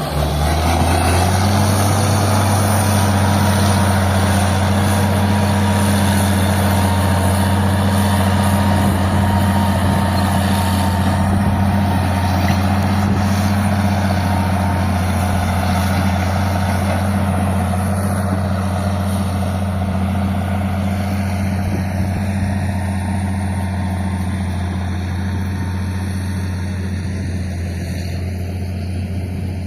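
Old Caterpillar D6 crawler dozer's diesel engine running steadily with a deep, even drone, growing slightly fainter in the last third.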